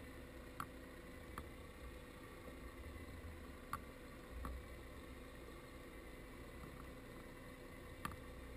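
Underwater ambience heard through a GoPro's waterproof housing: a faint, steady low hum with a few sharp clicks, about five in all.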